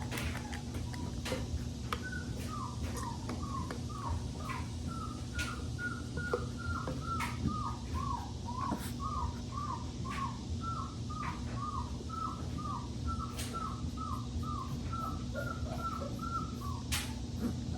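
Young Boerboel puppy crying: a long run of short falling whimpers, about two a second, with scattered clicks.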